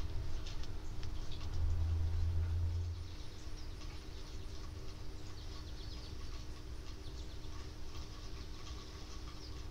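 Rain pattering in many small, irregular drips, with a low rumble swelling briefly about a second and a half in.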